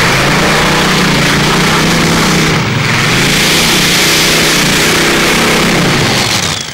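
Modified pulling tractor's V12 aircraft engine running flat out under load as it drags the weight sled, its pitch wavering and dipping briefly partway through. It cuts off abruptly near the end.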